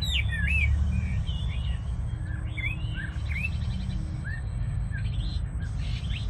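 Songbirds chirping, many short notes sweeping up and down, thick in the first second and sparser after, over a steady low rumble.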